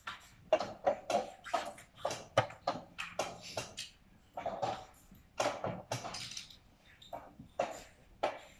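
Irregular run of sharp clacks and knocks, several a second, from draughts pieces being set down and chess-clock buttons being pressed in fast blitz play.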